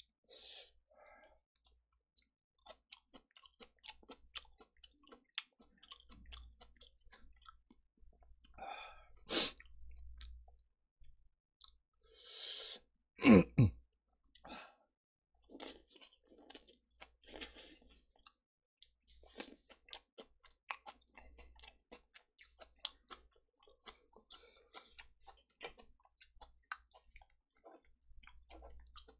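Close-miked chewing and wet mouth clicks of someone eating stir-fried kimchi and pork belly, with scattered small ticks throughout. There is one sharp, louder mouth noise about nine seconds in and a longer, louder one falling in pitch about thirteen seconds in.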